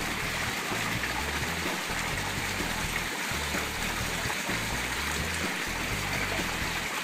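Background music with a low bass line moving between held notes, over a steady rushing hiss.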